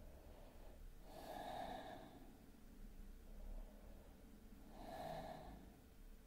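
A woman's quiet, slow yoga breathing: two long breaths about four seconds apart, each lasting about a second.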